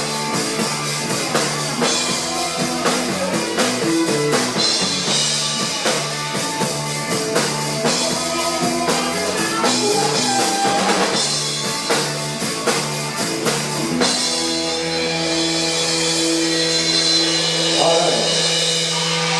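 Rock band playing a song: drum kit beating a steady rhythm under guitar chords. About two-thirds of the way through the drums stop and one chord is held and rings on.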